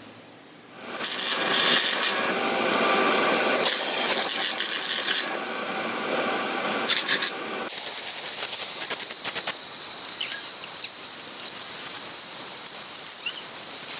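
Electric arc welding on a steel wire-mesh fence: a steady crackling sizzle with sharp pops, starting about a second in and changing in texture about eight seconds in.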